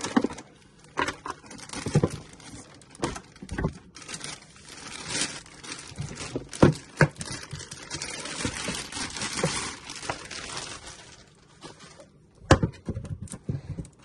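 Clear plastic bag crinkling and rustling as it is pulled off a boxed filament dryer, with scattered light knocks from handling the unit and a couple of sharper knocks near the end.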